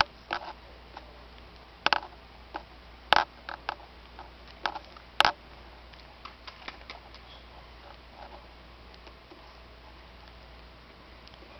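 Irregular light clicks and knocks, with a few sharper ones in the first half and fewer, fainter ones later, over a faint steady low hum.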